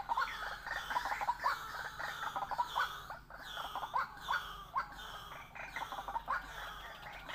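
White-breasted waterhen calling: a continuous run of rapid repeated call notes, several a second, with no break.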